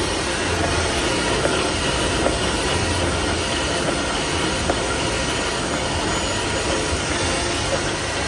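XY-AI-400 automatic toilet paper band saw cutting machine running and cutting toilet paper rolls: a steady mechanical noise over a low hum, with a few light clicks.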